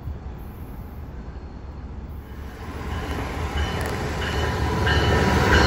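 Brightline passenger train with a Siemens Charger diesel locomotive approaching; its running noise swells steadily from about two seconds in, with a few short high-pitched tones over it near the end.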